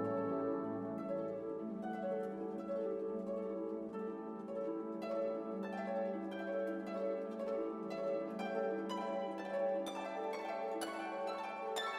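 Background music: plucked harp and pizzicato strings playing a gentle melody, the notes growing busier in the second half.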